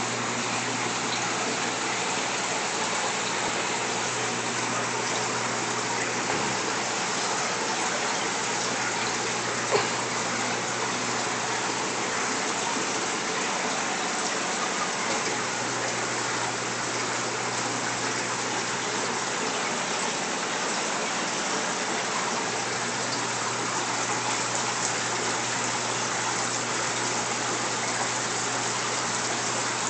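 Steady rushing of aquarium water circulation, with a low steady hum underneath and one brief tap about ten seconds in.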